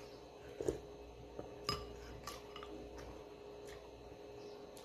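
Metal spoon clinking lightly against ceramic bowls and a plate while eating: a few short clinks, the sharpest about a second and a half in, over a faint steady hum.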